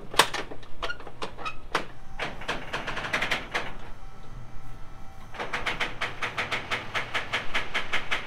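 Metal knocks and clanks, then a fast, even rattle of sharp clicks, about eight a second, from about five seconds in, over a steady low hum of machinery.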